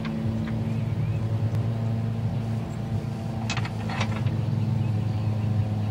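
A steady low motor hum, with a few short clicks about three and a half to four seconds in.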